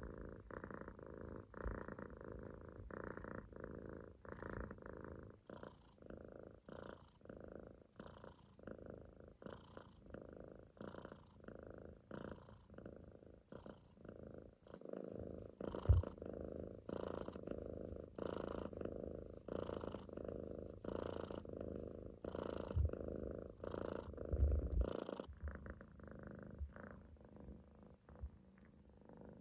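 Munchkin kitten purring steadily while dozing, with a breathy, snore-like pulse of about one breath a second that fades near the end. A few soft low bumps, the loudest about halfway through.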